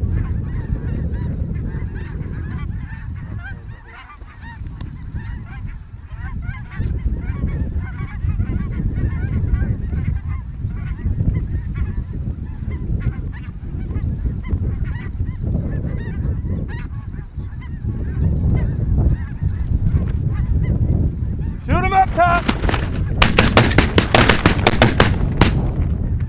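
A large flock of snow geese calling overhead, a dense chorus of overlapping honks; near the end one louder, closer goose call, then a rapid volley of about a dozen shotgun blasts from several hunters firing together over two to three seconds.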